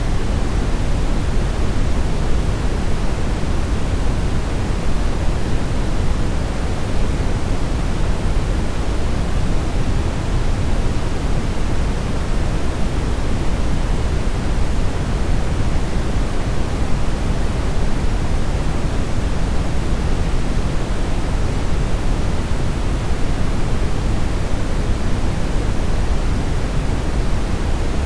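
Steady brown noise: an even, unchanging hiss-like rumble with most of its energy in the low bass, fading toward the highs.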